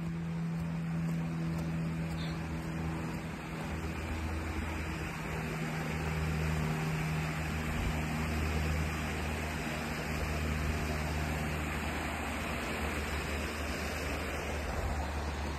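Stream water rushing steadily over a small weir, with a low steady hum underneath.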